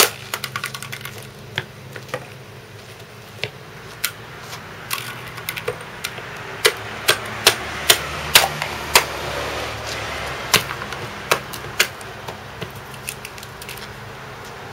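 Hammer striking a medicine bottle on a concrete sidewalk: a long run of sharp, irregular blows, the hardest right at the start, coming thickest in the middle and thinning out near the end.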